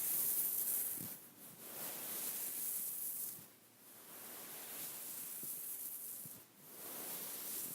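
Fingers rubbing and scratching over a beaded pillow: a bright, hissing rustle of beads that swells and fades in long strokes, with a few faint ticks.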